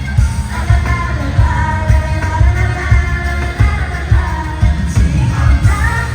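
Female pop vocals sung live over a backing track through a loud concert PA, with a heavy bass pulse beating steadily beneath.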